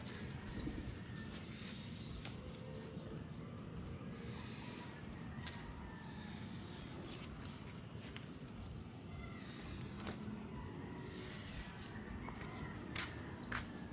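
Quiet farmyard ambience: a steady high-pitched insect drone, with scattered light clicks and a few faint short animal calls.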